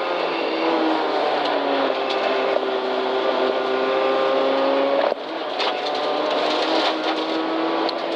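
Rally-prepared Toyota Corolla's engine pulling hard, heard from inside the caged cabin: the engine note climbs steadily, drops suddenly about five seconds in, then climbs again.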